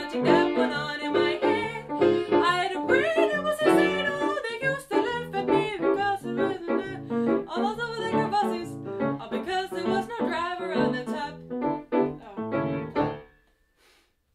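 A woman singing a jazz song with piano accompaniment. The music stops about thirteen seconds in as the last chords die away.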